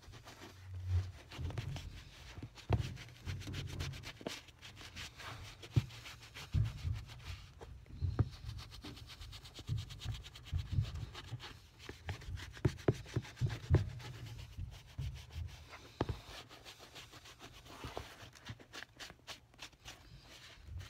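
A sponge rubbing leather conditioner over the leather uppers of an Allen Edmonds shoe, with irregular soft knocks and small clicks as the shoe is handled.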